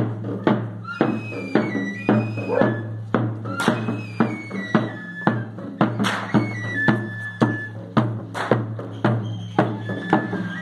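Traditional procession music of flute and drum: a steady drum beat of about two strokes a second under a high, stepping flute melody.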